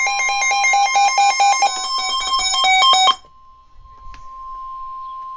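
A steady alert tone of about 1050 Hz, the kind used by the Emergency Alert System and NOAA Weather Radio, sounds throughout. For the first three seconds a louder, rapid run of short electronic beeps at quickly shifting pitches plays over it, then stops suddenly, leaving the tone alone with a single click about four seconds in.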